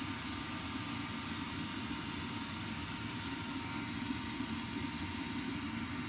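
Propane forge burner running with a steady roar.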